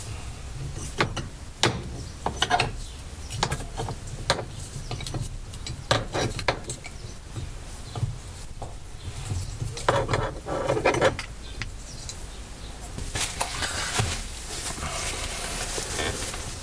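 Hand tools clinking and knocking against the Rover P5B's gear lever mounting as it is worked loose: irregular sharp metallic clicks and taps, a denser clatter about ten seconds in, and a longer, noisier stretch of scraping and handling near the end.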